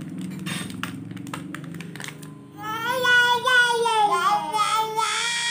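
A toddler's loud, high-pitched squealing starts about two and a half seconds in. It wavers for about three seconds and slides down in pitch at the end.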